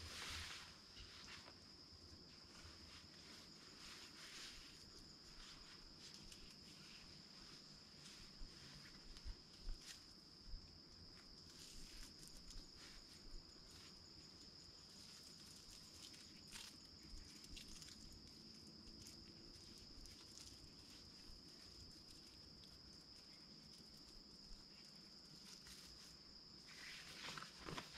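Faint, steady high-pitched insect drone, with occasional soft rustles and light knocks as a tarp shelter is handled.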